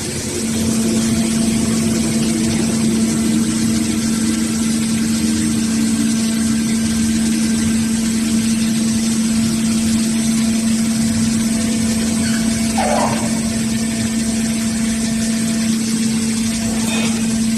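Underground mining drill rig running steadily, a loud constant hum over a dense mechanical noise, with a brief faint squeal about two-thirds of the way through.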